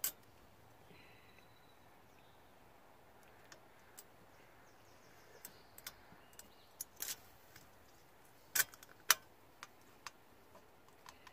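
Small clicks and taps of a chrome horn button cap being pressed and twisted into its retaining clip on a steering wheel hub, with two louder clicks a little past the middle.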